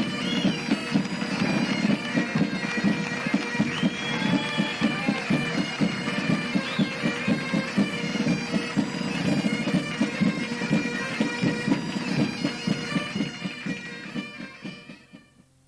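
Pipe band sound effect: bagpipes playing a tune over a steady drone, with a regular drum beat, fading out near the end.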